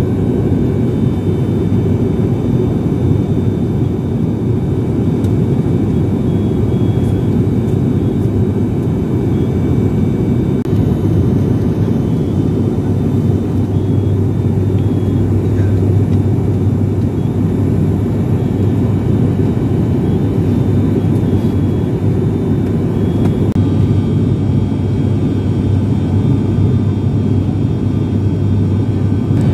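Steady cabin drone of an ATR turboprop airliner in flight, heard from a window seat beside the engine: a low, even propeller hum over engine and airflow rush.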